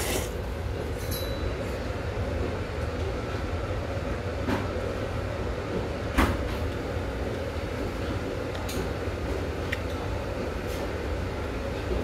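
Eating sounds at a table: metal chopsticks and a spoon clicking against the noodle bowl a few times, the sharpest about six seconds in, over a steady low background rumble.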